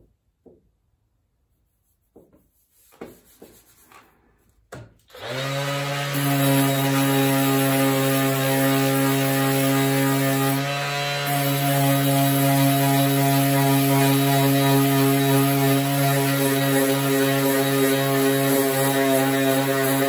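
A small electric sander starts up about five seconds in after a few light handling knocks, then runs steadily with a strong motor hum and a rasping grind as it sands down a high spot in fiberglass and body filler, easing briefly about halfway through.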